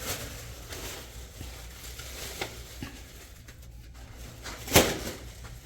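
Faint handling and rustling over a steady low hum, with one sharp knock near the end.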